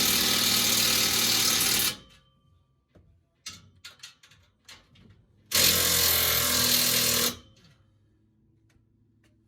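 A handheld power tool runs in two bursts, each cutting off sharply. Between them come a few clicks and knocks of metal parts being handled, as an exhaust system is fitted.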